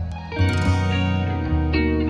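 Background music of plucked strings, with a bright plucked chord about half a second in that rings and fades over held notes.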